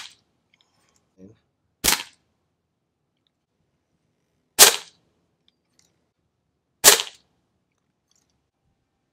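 Benjamin Marauder pistol, a .22 pre-charged pneumatic air pistol, firing: three sharp cracks about two and a half seconds apart, with the tail of a shot just ending at the start.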